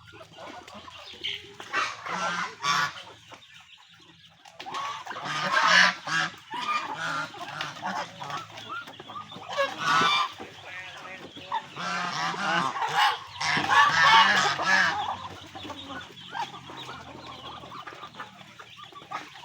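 Domestic geese honking in loud bouts, with quieter calling between: a burst about five seconds in, another near ten seconds, and a longer stretch from about twelve to fifteen seconds.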